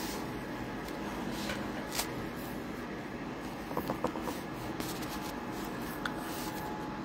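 Steady room noise with a few soft clicks and taps from a phone being handled: one about two seconds in, a small cluster around four seconds, and another near six seconds.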